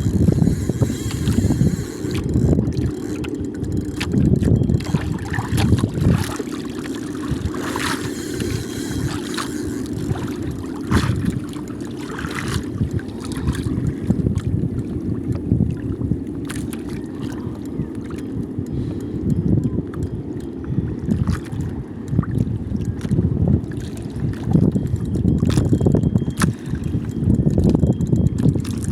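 Wind rumbling on the microphone, rising and falling in gusts, with water sloshing around a small boat.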